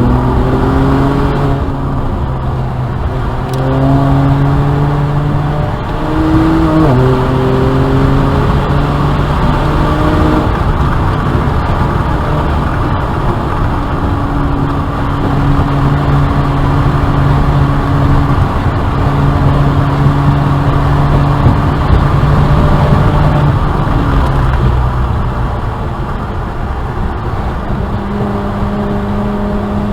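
BMW 335i's N54 twin-turbo straight-six, fitted with upgraded turbos, driven hard on track. Its note climbs under acceleration and drops sharply a few times at shifts or lifts, with steadier stretches of pitch in between.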